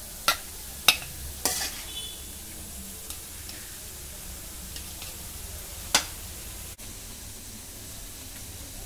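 A metal spatula scraping and clinking against a steel kadai and a steel plate as stir-fried greens are served out: sharp strikes in the first two seconds and one more about six seconds in, over a steady low hiss.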